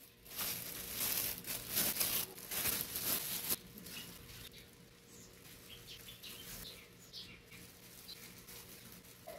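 Thin plastic crinkling loudly as a bag and disposable plastic gloves are handled, for the first three seconds or so. After that come quieter, scattered small crackles as smoked fish is pulled apart by gloved hands.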